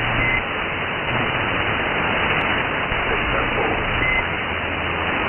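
Steady hiss of radio band noise from an SDR receiver tuned to the CB band between skip transmissions. Faint traces of distant voices are buried in it, and two short high beeps come near the start and again about four seconds in.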